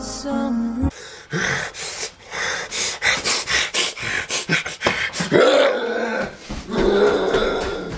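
Music cuts off about a second in, then a man pants and gasps hard and fast in distress, with a couple of drawn-out cries.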